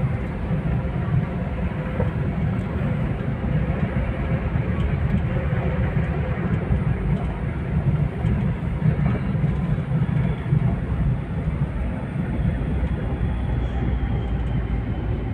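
Steady low rumble of engine and road noise heard from inside a moving car, a Toyota Avanza G with a 1.3-litre straight-four.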